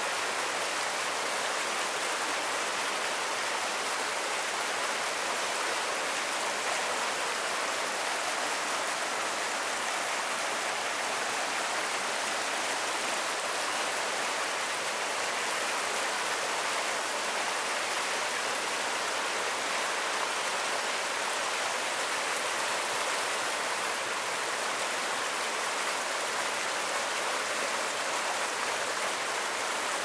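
Mountain stream water rushing steadily, an even, unbroken roar of flowing water.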